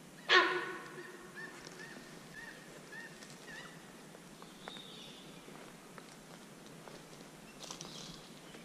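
A sambar deer gives one loud alarm honk, short and fading quickly. A bird then chirps about five times in quick succession, with fainter high calls later.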